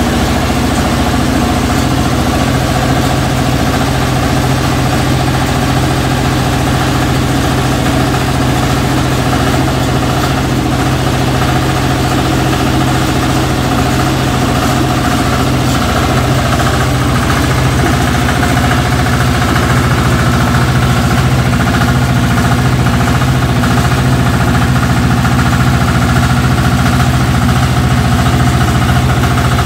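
Single-cylinder air-cooled diesel engine driving a rice mill, running steadily at an even speed just after being electric-started.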